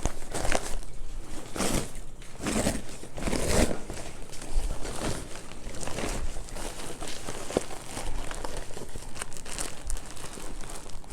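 Packaging being crinkled and unwrapped by hand: irregular crackling rustles, with short louder swishes every second or so.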